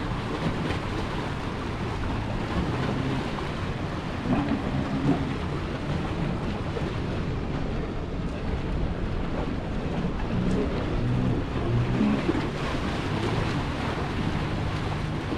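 Steady wind and water noise at the water's edge, with the low hum of a passing boat's motor that comes and goes.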